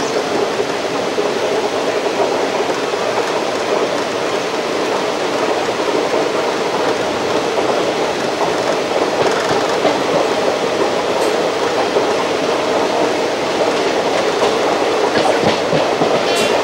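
Express train of ICF passenger coaches running at speed: a steady rumble and rush of wheels on rail with no clear clickety-clack rhythm. A brief higher-pitched sound comes in near the end.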